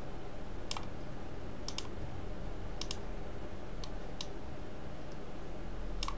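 Computer mouse left button clicking about five times, roughly a second apart, some heard as a quick double click, over a steady low background hum.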